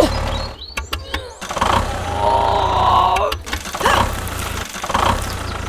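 A steady low engine drone, cutting out briefly about half a second in and again near the middle, with wavering, gliding pitched sounds over it.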